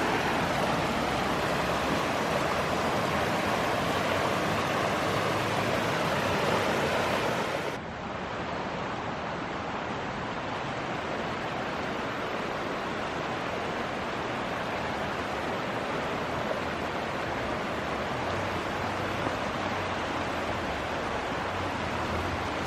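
Mountain creek water rushing over rocks, a steady hiss. About eight seconds in it cuts abruptly to a slightly quieter take of the flowing water with the highest hiss gone.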